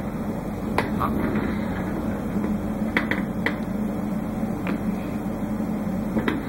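A steady low mechanical hum, with a handful of short light clicks scattered through it.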